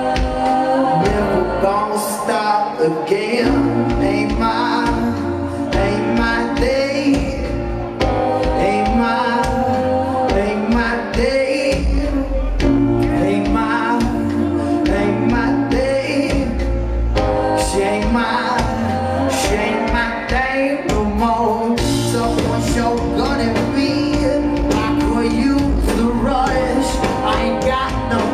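Rock band playing live: electric guitar and drums with a male singer's voice, heard from within the audience.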